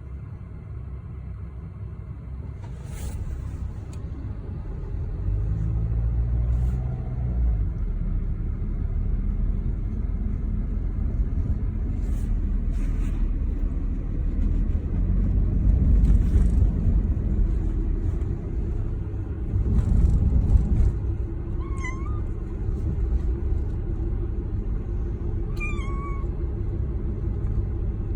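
A cat meows twice in the last third, short high-pitched meows, over a steady low rumble with occasional rustling.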